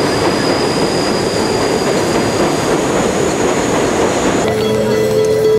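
Subway train running past, a dense rail noise with a steady high-pitched wheel squeal. About four and a half seconds in it cuts off abruptly and gives way to music with a held tone.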